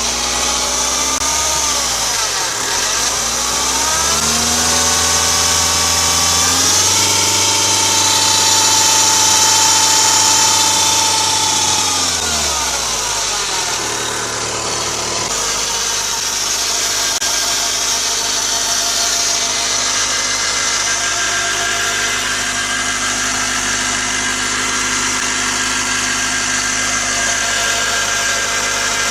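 Audi A6 C6 2.0 TDI diesel engine running: it is revved up and held there for about five seconds, then drops back to a steady idle about halfway through. The owner traced the strange noise on this engine to a worn v-ribbed belt deflection/guide pulley.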